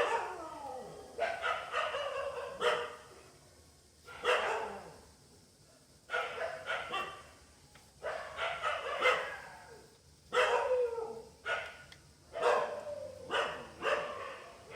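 A dog barking over and over, in runs of short barks with brief pauses between them.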